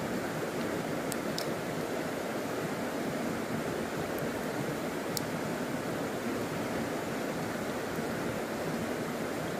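A small river flowing steadily over stones, a continuous rushing of water, with a few faint sharp ticks about a second in and again around the middle.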